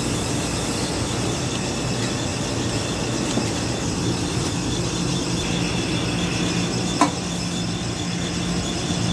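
Steady machinery noise with a high-pitched whine and a low hum that joins about four seconds in. About seven seconds in there is a single sharp knock as the metal line filter housing is set down on the table.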